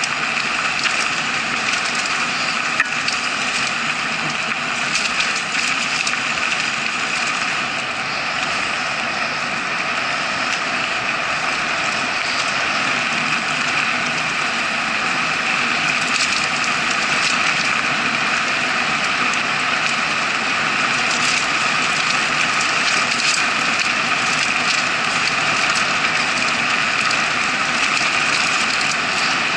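Steady rush of wind and tyre-on-dirt rumble from a mountain bike descending a forest trail at about 33 km/h, heard through the action camera's case, with scattered small knocks and rattles from the bike.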